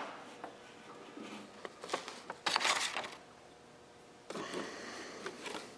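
Faint handling noises: light clicks and brief rustling as a small plastic automotive relay is picked up and turned over in the hands.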